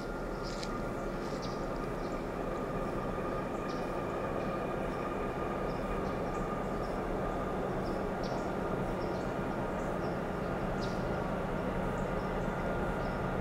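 Distant rumble of an approaching Norfolk Southern diesel freight train, growing gradually louder, with a steady high hum in it. A few short high chirps sound over it.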